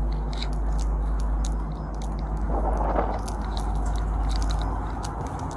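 Handling noise from a chest-worn police body camera as the wearer walks: its casing rubs and scrapes against the uniform, with a steady low rumble of wind on the microphone. Short clicks and knocks run throughout, and a louder rustle comes about two and a half seconds in.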